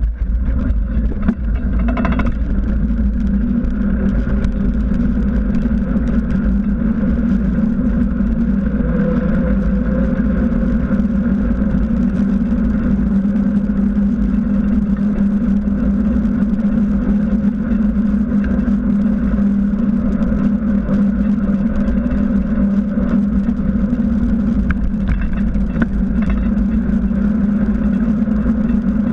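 Steady rumble of wind and road noise from a bicycle ridden on asphalt, picked up by a handlebar-mounted camera, with a steady hum and a brief knock about two seconds in.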